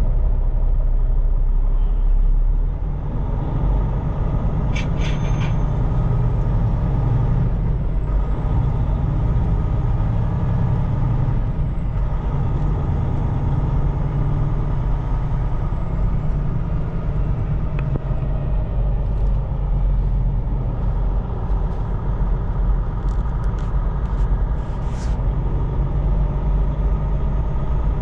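Semi truck's diesel engine and road noise heard inside the cab while driving: a steady low rumble, with a few short clicks about five seconds in and again near the end.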